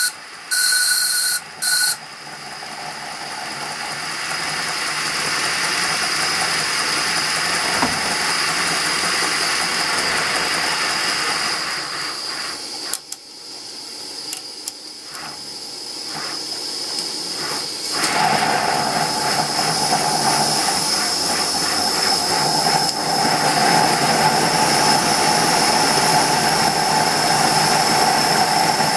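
Aster BR 52 live-steam model locomotive: two short toots of its steam whistle at the start, then a steady hiss of escaping steam. The hiss dips around 13 seconds in and comes back louder from about 18 seconds, now with a steady whistling tone in it.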